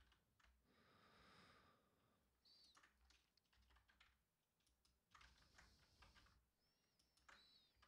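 Very faint typing on a computer keyboard: scattered, irregular key clicks.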